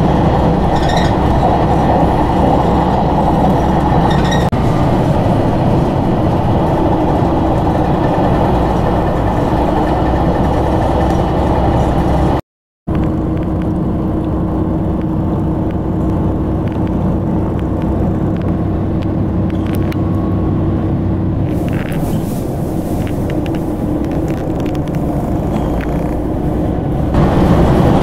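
Train running, heard from inside the carriage as it crosses a steel truss bridge: a loud, steady rumble of wheels on rail with a constant low hum. It breaks off in a moment of silence about twelve seconds in, sounds duller afterwards, and grows louder again near the end.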